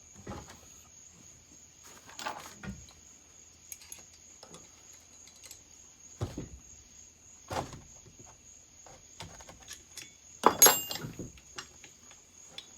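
Metal hand tools clinking and knocking as an Allen key is handled and set to the chainsaw's cylinder bolts, a few scattered taps and one loud metallic clatter with ringing about ten and a half seconds in.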